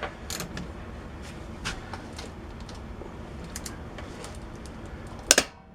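Scattered light metallic clicks from the torque wrench and socket on a lug nut, then a sharp loud click near the end with a second one just after: the click-type torque wrench set to 190 ft-lb letting go before the lug nut breaks loose, a sign the nut was torqued past 190 ft-lb.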